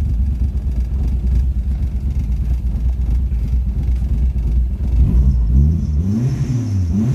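Ford Escort Mk2's boosted engine idling lumpy, then revved up and down a few times from about five seconds in. The owner says it is running really rich and needs a good tune.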